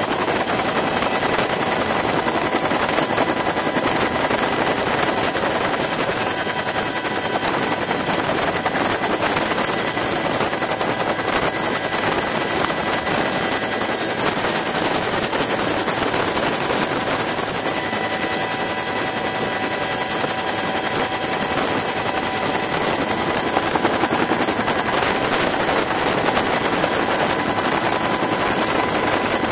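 Bell UH-1 Huey helicopter in flight, heard from aboard: a steady rapid chop of the rotor blades over continuous turbine noise with a steady whine. The noise holds level the whole time, with no change in pitch.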